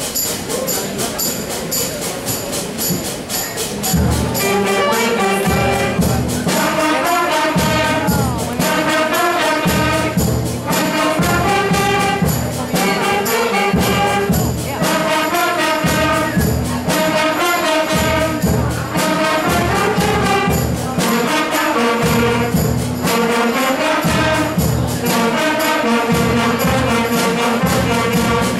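Student concert band with keyboard playing a pop tune over a steady percussion beat. The fuller low parts and melody come in about four seconds in.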